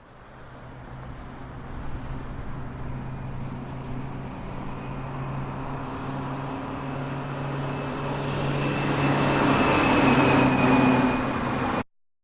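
Motor vehicle running: a steady engine hum with road noise that grows louder toward the end, then cuts off abruptly.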